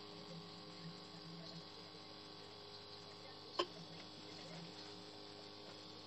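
Faint steady electrical hum with one sharp click about three and a half seconds in.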